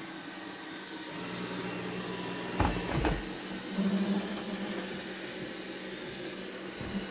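Xiaomi Mi robot vacuum cleaner running, a steady motor hum, with a couple of short knocks about two and a half to three seconds in.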